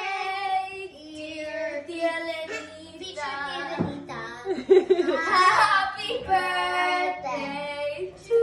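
Young girls singing a song together in short sung phrases.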